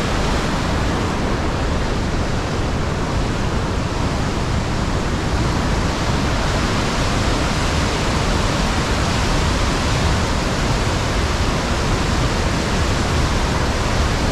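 St. Mary Falls, a large waterfall pouring through a rock gorge into a churning pool, rushing with a loud, steady roar of white water.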